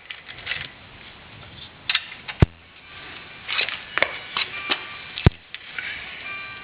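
Small caps being worked off a rear brake caliper by hand: scattered light clicks and rattles, with two sharp knocks about two and a half and five seconds in.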